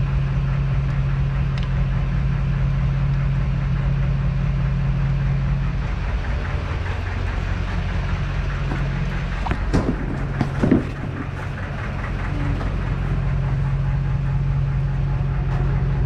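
Diesel tractor engines idling steadily as they warm up, a constant low hum. A few sharp knocks come about ten seconds in.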